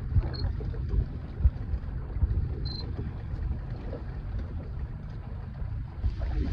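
Wind buffeting the microphone on an open boat: a gusty low rumble with irregular thumps over a steady wash of noise. Two short, faint high chirps sound about half a second in and again near three seconds.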